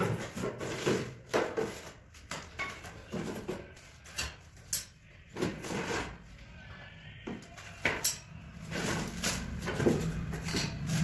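Cardboard packaging being handled while an electric putty mixer is unboxed: box flaps and a cardboard insert rustling and scraping, with irregular knocks as the parts are pulled out and set down.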